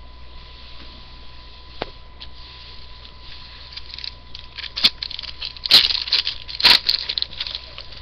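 A foil Panini Prizm football card pack being crinkled and torn open. The crackling starts about halfway in, with several sharp loud rips and crinkles near the end.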